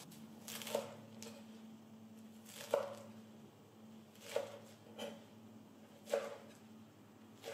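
Chef's knife cutting through a bunch of wild garlic leaves and knocking on a wooden cutting board: about five single, unhurried cuts one to two seconds apart.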